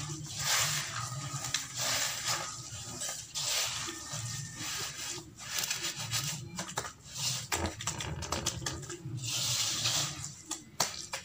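Hands squeezing and mashing wet, gritty sand-cement paste, making squelching, crumbling sounds in irregular strokes with small sharp crackles as the paste is pressed and released.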